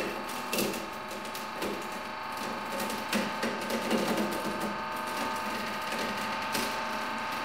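A hydraulic press crushing a lattice of thin rods, which crack and snap irregularly as they break under the rising load, over the steady hum of the press.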